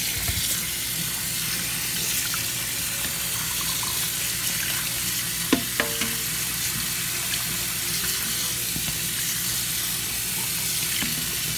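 Warm tap water running steadily onto spaghetti in a plastic colander in a stainless steel sink, a continuous hiss. Two knocks about halfway through as a utensil stirs the noodles against the colander.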